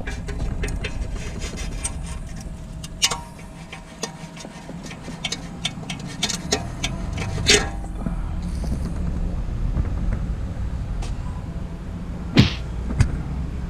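Toyota GR Supra (A90) with a steady low rumble and scattered sharp clicks and knocks. The loudest knocks come about three, seven and twelve seconds in. This is the sudden abnormal noise from the car's suspension.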